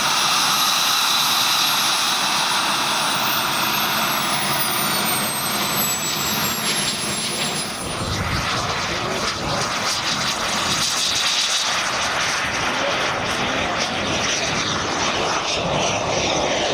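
Twin JetCat P120 model gas turbines of a quarter-scale RC jet running with a loud, steady rush, with a thin high whine that falls in pitch over the first several seconds.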